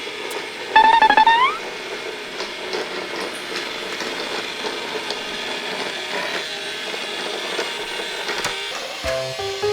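A robot vacuum cleaner's motor and brushes running steadily under background music. About a second in comes a short, loud, high call that rises in pitch at its end.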